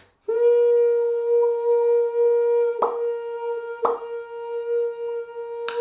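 A beatboxer's nasal hum held steadily on one high note, with short mouth clicks made over it at the same time: one about three seconds in, another a second later, and a third near the end. This is the first step of making two sounds at once, a hum through the nose and percussion with the lips and tongue.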